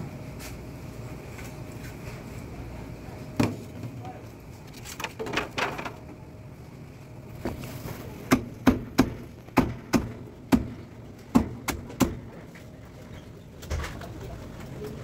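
Heavy cleaver chopping through a roast duck onto a wooden chopping block: a single chop about three seconds in, then a quick run of about nine sharp chops, roughly two a second, in the second half.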